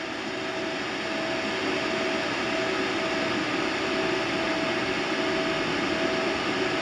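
Steady hiss of the running solid-state RF amplifier setup, with two faint steady tones under it, growing a little louder over the first couple of seconds.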